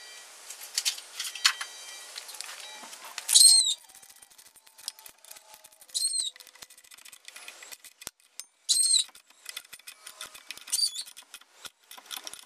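A bird calling four times, a short high hooked call about every two and a half seconds, over the fine clicking of a hand ratchet tightening the carburetor's mounting nuts.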